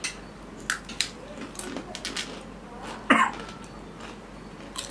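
A crisp chip bitten and chewed, with a few sharp crunches in the first second. About three seconds in there is a short cough.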